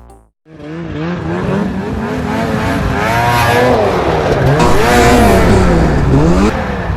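Snowmobile engine revving under a rider, its pitch rising and falling several times as the throttle opens and eases, then dropping off sharply near the end.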